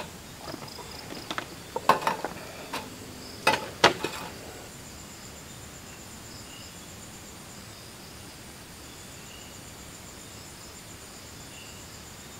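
Steady high-pitched chorus of night insects in a tropical forest. About eight sharp knocks and clicks over the first four seconds stand out above it as the loudest sounds, and then the insects go on alone.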